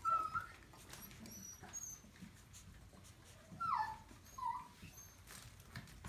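Maltese puppies whimpering and yipping while they play-wrestle: a short squeal at the start, a longer falling whine about three and a half seconds in, then another short squeal.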